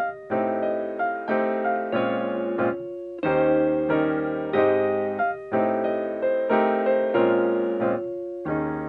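Background piano music: sustained chords struck about once a second, each fading before the next.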